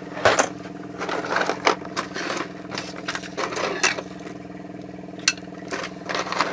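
Steady hum of a small mains electric motor, from the spray booth or airbrush compressor, with short irregular bursts of airbrush hiss and small handling noises as a model tank turret is sprayed.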